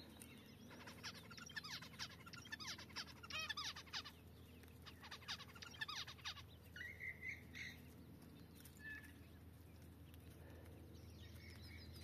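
Small birds chirping and twittering: a quick, dense run of chirps for the first several seconds, then a short wavering call about seven seconds in and one more faint call a little later.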